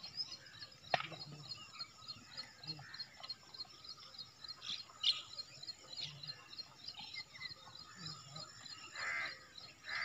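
Birds chirping outdoors: a fast, steady run of high chirps throughout, with a louder, coarser call about nine seconds in and a few faint clicks.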